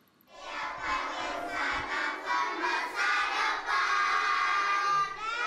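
A crowd of children shouting and chanting together, many voices at once, with a held high note and a rising shout near the end.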